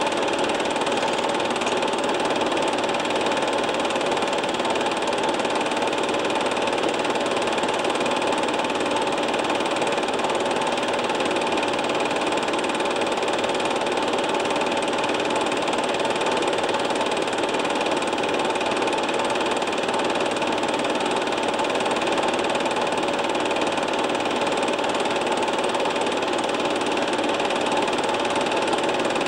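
Film projector running: a steady mechanical clatter and whir that never changes, with a few held tones in it.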